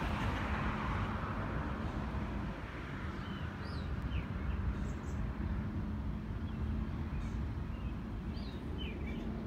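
Small birds chirping now and then over a steady low rumble and hum. A broad rushing noise fades away over the first two seconds or so.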